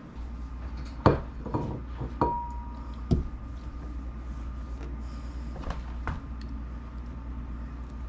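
Scattered knocks and taps of hands and tools working a rubber windshield seal onto the glass in a Jeep CJ5's windshield frame, one tap ringing briefly with a clear tone. A steady low hum runs underneath.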